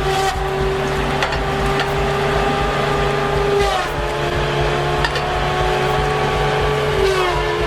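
Tree-felling machine running under load: a heavy engine with a steady whine that drops in pitch twice, about halfway through and near the end, and a few sharp clicks.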